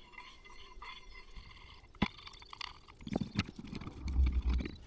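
Improvised tool forcing a rear brake caliper piston back: a sharp metallic click about two seconds in, then a rough, low-pitched scraping and straining noise near the end as the piston is pushed in.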